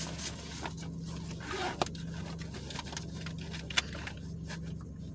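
Steady low hum inside a car cabin, from the car's engine and air conditioning running while it sits still, with a few sharp clicks, the loudest about four seconds in.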